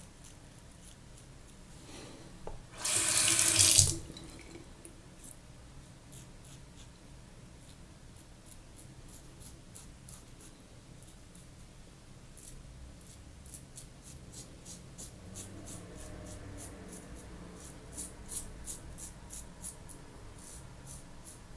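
Rockwell 6S safety razor scraping through lathered stubble in short strokes, giving crisp ticks several a second in the second half. A tap runs hard for about a second near three seconds in.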